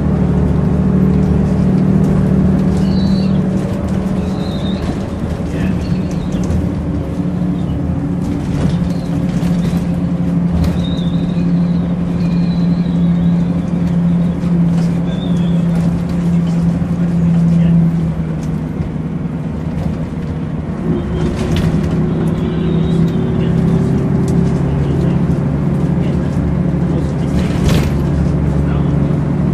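Volvo Citybus double-decker's diesel engine running under way, heard inside the passenger saloon with body rattles and squeaks. The engine note drops about two-thirds of the way in as the bus eases off, then climbs again as it pulls away. A sharp knock comes near the end.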